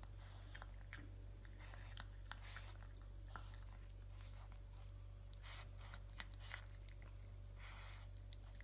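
Pug puppy eating dry food from a ceramic slow-feeder bowl: faint, irregular crunching and chewing, with small sharp clicks.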